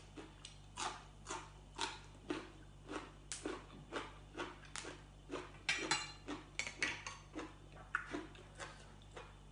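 Close-up chewing of a crunchy raw green bean: a steady run of crisp crunches, about two a second.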